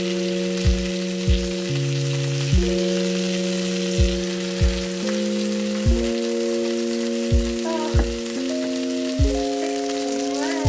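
Food sizzling in a frying pan, a steady hiss, under background music with held synth chords and a repeating kick-drum beat.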